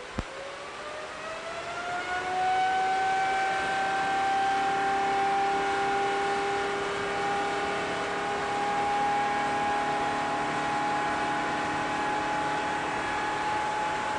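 GE90-115B high-bypass turbofan bursting from low power to takeoff thrust while heavy water spray is fed into it for an ingestion test. Its whine rises over about two seconds, then holds steady over a loud rushing roar.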